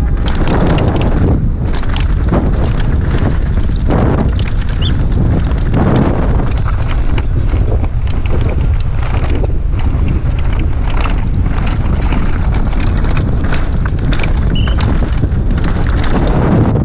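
Wind buffeting a GoPro action camera's microphone as a mountain bike descends a dirt and rock trail at speed, with tyre rumble and frequent short knocks and rattles from the bike over the rough ground.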